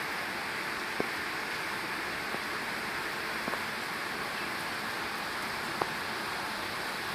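Heavy rain falling steadily, a dense even hiss, with two sharp ticks about a second in and near the end.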